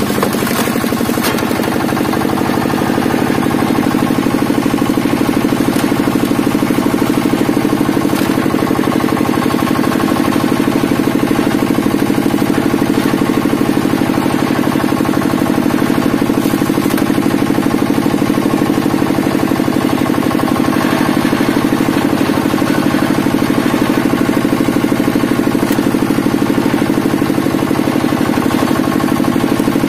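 Hydraulic log splitter's power unit running steadily with a fast, even beat as its wedge is driven through logs, with a few faint cracks of wood splitting now and then.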